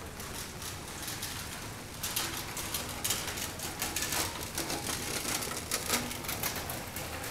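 Rainy city street: a steady wet hiss, joined about two seconds in by a dense, irregular patter of close clicks and taps.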